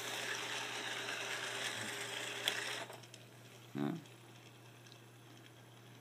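Roomba-based robot's drive motors whirring with the wheels running on carpet, one motor mis-programmed to turn backwards; the whir drops off sharply about three seconds in. A brief vocal sound follows about a second later.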